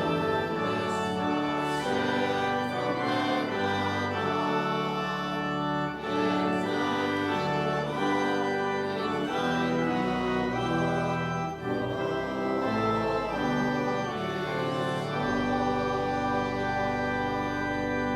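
Church organ playing slow sustained chords, closing on one long held chord.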